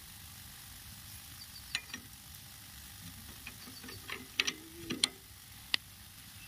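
Steel spanners clinking and tapping against the nuts and fittings around a power tiller's fuel-pump air-bleed screw: scattered sharp metallic clicks, a few ringing briefly, coming most thickly between about four and six seconds in.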